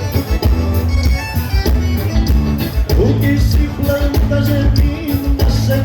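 A live band playing gaúcho music, with a strong steady bass and drum beat under sustained melody notes.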